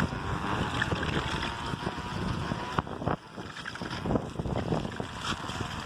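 Milk carton pressed against a bicycle's spokes, flapping as the wheel turns to make a motorbike-like buzzing rattle, with wind on the microphone. The carton has slipped out of its proper position, which keeps the noise lower than it can be.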